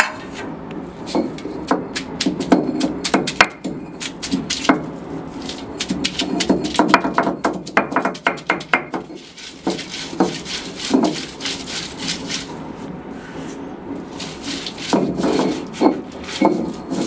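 Stone roller of a flat Kerala grinding stone (ammikkallu) crushing and grinding shallots, garlic and grated coconut into a paste: quick runs of crunching knocks and scraping of stone on stone, in bursts with quieter spells between them.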